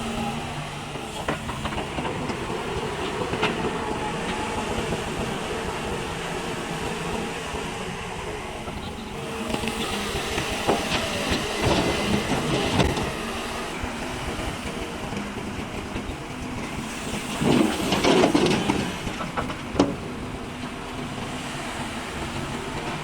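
JCB backhoe loader's diesel engine running steadily, with scattered knocks and a louder burst of noise about eighteen seconds in, followed by a sharp knock.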